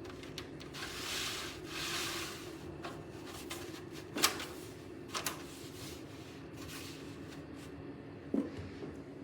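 A PC case being handled: two brief rubbing, sliding sounds, then a few sharp clicks and knocks of its panels and parts, over a steady low hum.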